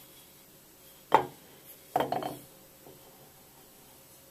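Welded steel bucket lugs being handled on a metal welding table: a sharp metallic knock about a second in, then a quick cluster of clinks around two seconds in.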